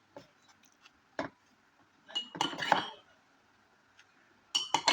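Eating utensil clinking and scraping against a plate during a meal. There is a single knock about a second in, a run of clinks over the middle, and another run near the end.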